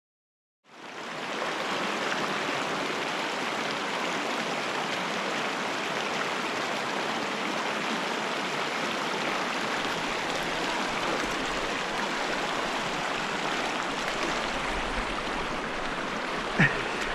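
Mountain creek water rushing and splashing steadily, fading in after a brief silence at the start, with a single sharp click near the end.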